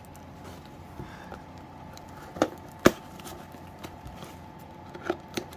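Box and packaging being handled as a smoke alarm is unboxed: scattered light clicks and knocks, the sharpest about three seconds in.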